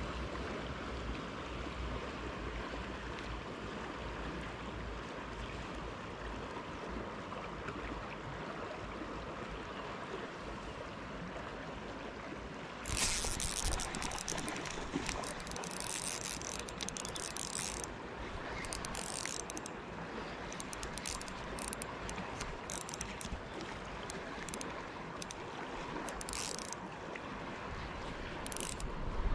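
Steady rush of a shallow river running over stones. From about 13 seconds in, an Okuma Helios spinning reel is wound in stop-start bursts, retrieving line after a cast.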